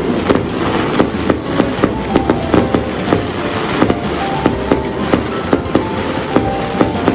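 Chinese New Year fireworks and firecrackers going off: a dense, irregular run of sharp cracks and pops, several a second, over a steady low rumble.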